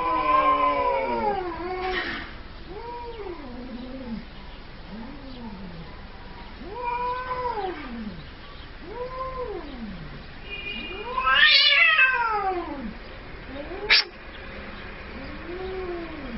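Domestic cat meowing over and over: about eight drawn-out calls that rise and fall in pitch, one every second or two, the loudest and longest about two-thirds of the way in. A sharp click comes near the end.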